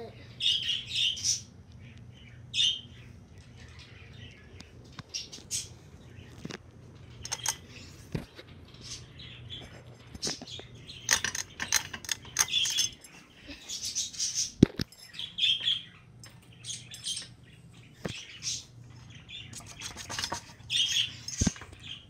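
Hunter Beacon Hill ceiling fan running in reverse with a steady low hum, while a bird chirps in short, irregular bursts. A few sharp clicks, one louder than the rest about halfway through.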